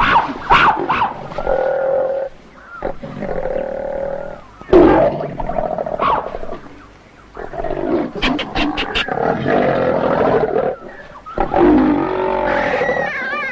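Leopard snarling and growling in repeated harsh bursts with short pauses while attacking a monkey, with a quick run of sharp clicks about eight seconds in.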